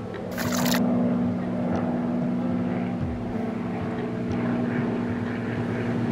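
Steady low drone like a light propeller plane's engine, with a brief splash of water about half a second in.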